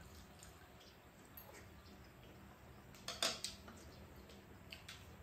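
Quiet table-eating sounds: spoons and chopsticks lightly tapping ceramic bowls, with one short, louder noise about three seconds in.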